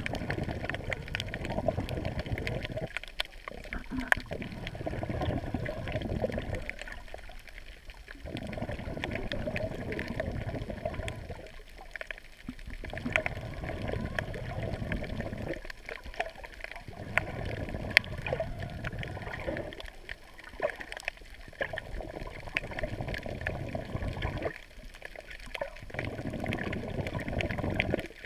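Underwater water noise heard through a GoPro's waterproof housing just below the sea surface: a muffled rushing and sloshing that swells and falls back about every four seconds, with scattered faint clicks.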